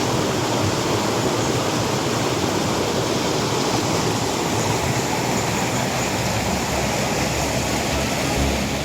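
Waterfall rushing and splashing in a steady, unbroken roar of falling water.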